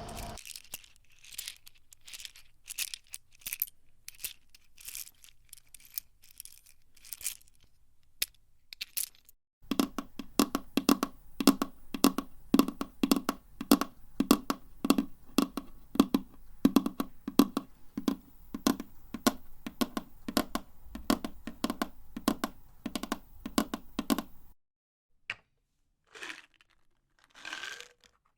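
Rapid, irregular clicks and crackles. They are sparse and thin at first, then from about ten seconds in come thicker and fuller-bodied, and they stop abruptly near the end, leaving a few faint swishes.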